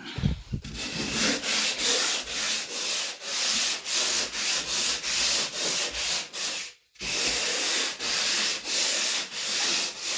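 Hand sanding of dried drywall joint compound: steady back-and-forth rasping strokes, about two to three a second, with one brief pause about seven seconds in.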